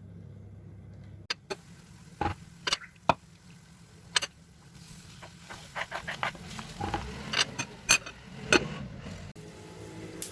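Irregular sharp clicks and light knocks of small objects being handled, growing more frequent past the middle, over a low steady hum.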